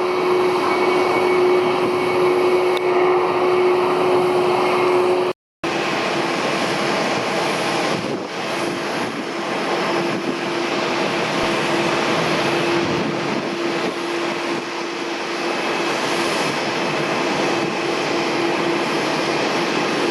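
Jet engines of a Boeing 767-300ER running at low taxi power, a steady whine over a wide rushing noise. The sound cuts out completely for a moment about five seconds in, then carries on the same.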